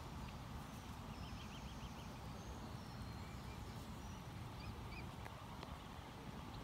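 Outdoor ambience: a steady low rumble with faint, high bird chirps over it, including a short rapid trill about a second in and a few brief calls around the middle.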